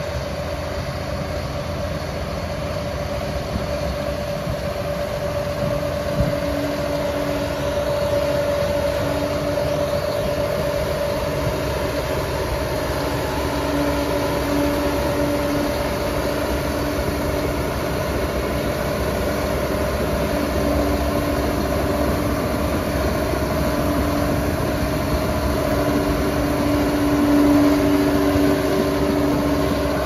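Liebherr PR 746 crawler dozer's diesel engine running under load as the blade pushes soil, with a steady whine over the engine. It gets louder as the machine comes closer.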